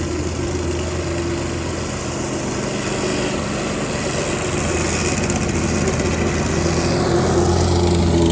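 A small engine running steadily at a constant speed, gradually getting louder toward the end.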